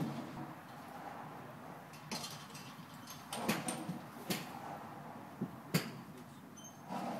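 Five or so short, sharp clicks and knocks of golf clubs and balls in a driving range bay, spread from about two seconds in, the loudest just before six seconds, over a steady low hush.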